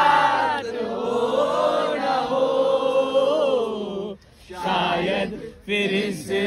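A group of voices singing together in long, drawn-out notes. The singing breaks off briefly twice around the middle.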